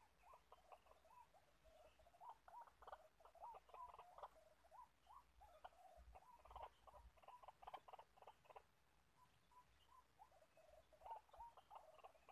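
White-breasted waterhen calling faintly in rapid runs of short notes, with a lull about two-thirds of the way through before the calls pick up again.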